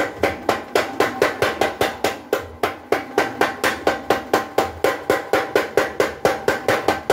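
Blacksmith's power hammer pounding a red-hot steel bar on its anvil die in a steady rhythm of about three to four blows a second. Each blow has a short metallic ring.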